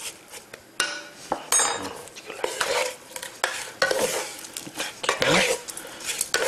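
Cubes of raw beef being stirred and tossed in a nonstick wok-style frying pan with a metal spoon and a wooden spatula: repeated scrapes and light clinks of the utensils against the pan.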